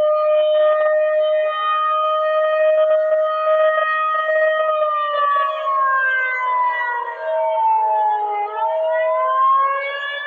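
Civil defense siren sounding a steady multi-tone wail. About halfway through, its pitch slowly falls for a few seconds, then rises again near the end.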